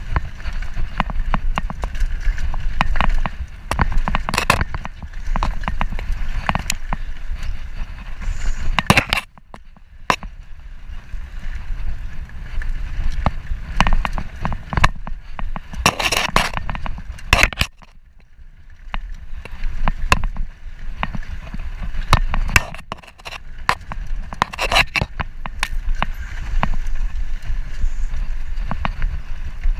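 Mountain bike riding dirt singletrack: tyres rolling over dirt and rock with frequent sharp rattles and clicks from the bike, over a heavy low wind rumble on the action camera's microphone. The noise eases briefly about nine and eighteen seconds in.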